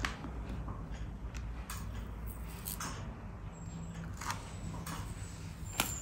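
A low steady hum with a few faint, short clicks, as of fine surgical forceps and a handpiece being worked.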